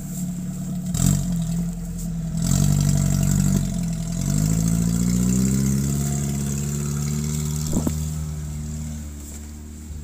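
An off-road 4x4's engine under load, revving up and down as it climbs a muddy bank, then holding steadier revs and fading near the end as it pulls away.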